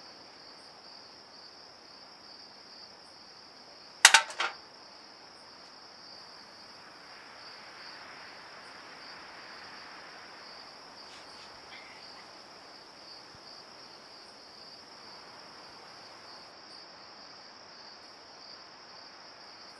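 Crickets chirping steadily, with one loud, sharp click or knock about four seconds in.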